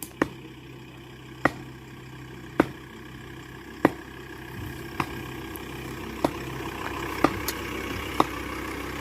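Vehicle engine running with a steady low hum that grows slowly louder. A sharp click sounds about once a second throughout.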